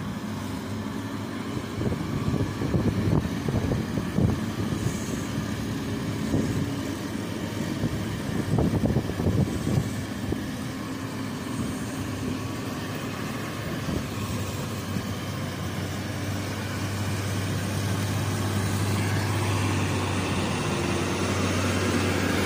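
Diesel engine of a heavily loaded Hino truck pulling up a steep mountain hairpin. The sound is uneven and rough in the first half, then settles into a steady low drone that grows louder near the end as the truck draws close.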